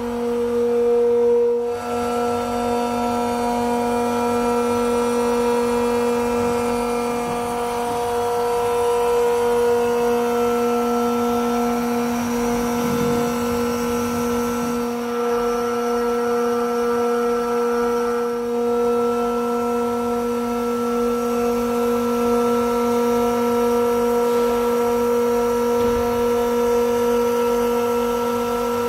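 Bitzer HSN6461-50-40P semi-hermetic screw compressors running under load, a steady even-pitched drone with several overtones that holds constant throughout.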